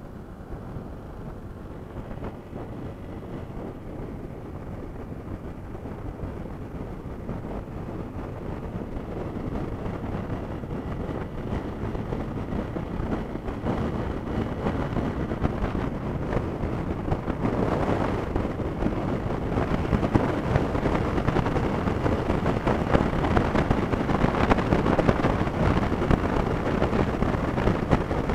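Wind rushing over the microphone and the running noise of a sport motorcycle riding at highway speed, growing steadily louder.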